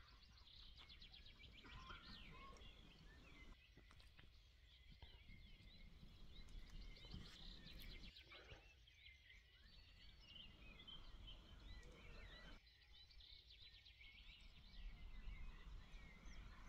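Very quiet outdoor ambience: faint birdsong of many short chirps over a low background rumble.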